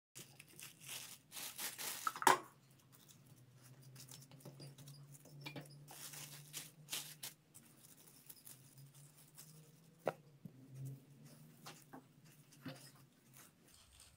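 Plastic cling film crinkling and rustling under a wooden rolling pin as soft sablé dough is rolled flat between two sheets, in irregular strokes that are loudest a second or two in and again about halfway, with a couple of light knocks later on. A steady low hum runs underneath.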